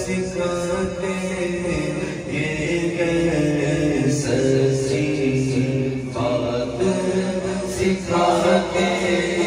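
A man's voice singing a naat, a devotional Urdu poem, into a microphone, in long held, ornamented phrases of a couple of seconds each.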